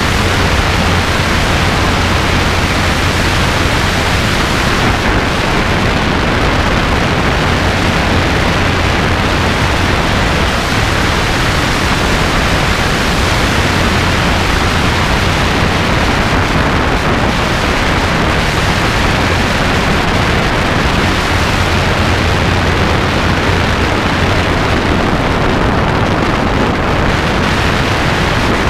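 Robinson R22 two-seat helicopter in steady cruise flight: a loud, unchanging rush of wind over the microphone with the low drone of the engine and rotor underneath.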